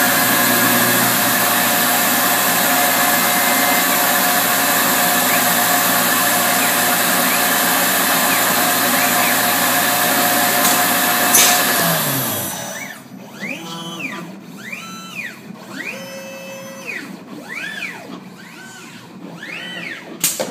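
The Tormach PCNC 770 mill's spindle runs steadily with a low hum, then spins down with a falling tone about twelve seconds in. Next the R17 robot arm's stepper motors whine as it moves, in a string of tones that rise, hold and fall with each move. A sharp click comes near the end.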